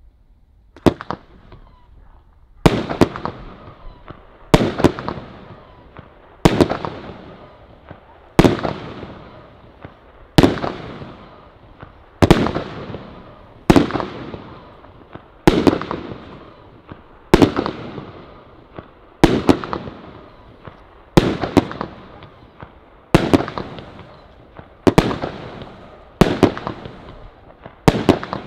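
A 'Swamp Beast' 22-shot 1.3G firework cake firing its shots one by one, about one every two seconds. Each sharp shot is followed by a fading tail of sound.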